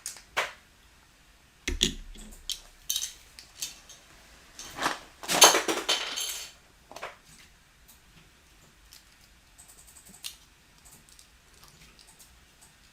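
Plastic building bricks clicking and clattering as they are sorted through by hand, with a loud rattle of many pieces about five seconds in, then only faint scattered ticks.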